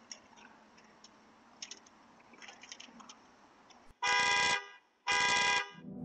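Faint clicking and scraping of a break-in tool at the driver's door of a Ram Laramie pickup, then the truck's horn honks twice, each blast about half a second long and a second apart, as the door is forced open.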